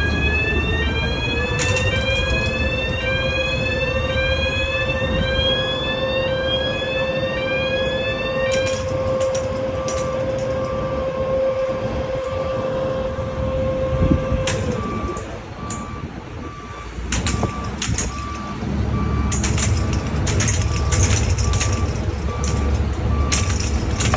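Heavy lifting machinery at work: a diesel engine running under a steady whine, with a warning alarm of quick repeated rising chirps for the first eight seconds or so. Sharp metal clanks follow. About halfway the whine falls away and a short beep repeats about once a second, like a reversing alarm.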